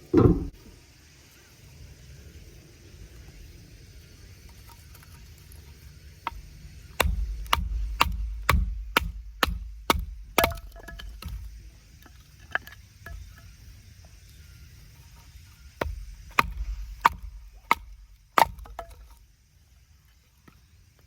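Wood being chopped with repeated sharp strikes, about two a second, in two runs, as when firewood is split for a fire. A single heavy thump comes right at the start.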